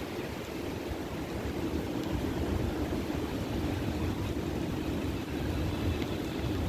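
A steady rushing noise with uneven low rumbling from wind buffeting the phone's microphone.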